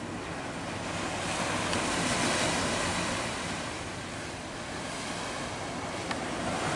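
Ocean surf washing steadily with some wind, swelling about two seconds in and easing off again.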